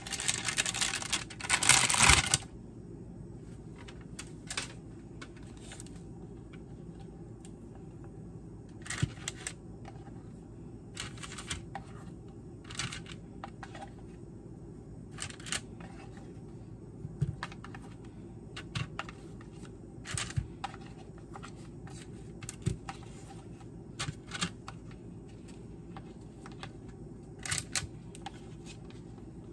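Plastic cookie-dough wrapper crinkling as it is pulled back off its tray for the first two seconds or so. After that come scattered light taps and paper rustles as pieces of pre-cut dough are broken off a paper tray and set down on parchment paper, over a steady low hum.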